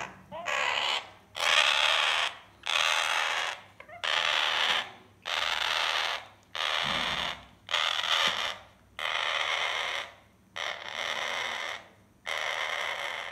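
African grey parrot chick giving a string of harsh, noisy rasps, each lasting most of a second, about one every second.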